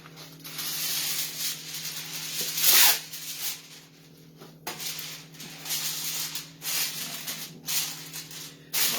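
Sheet of aluminum foil crinkling and rustling in irregular bursts as it is pressed down tightly over a baking pan, loudest about three seconds in.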